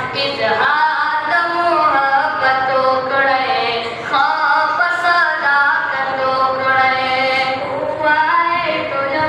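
Pashto naat, a devotional Islamic poem, sung unaccompanied by young male voices in long melodic phrases with held, ornamented notes.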